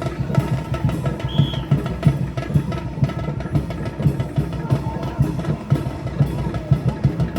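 Music driven by drums, with a steady, busy beat.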